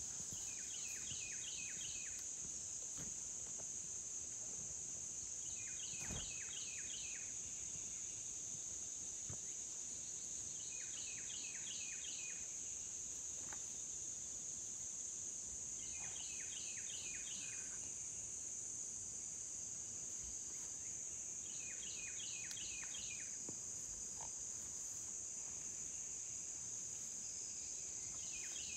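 Steady high-pitched drone of an insect chorus in a summer field. A short pulsed call of a few quick strokes repeats about every five seconds.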